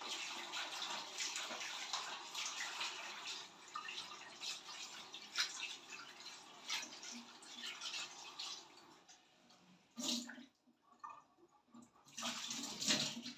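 Kitchen tap running into a plastic bowl of raw meat being washed by hand, with water splashing. The flow stops about nine seconds in, then comes back briefly twice as hands are rinsed under the tap.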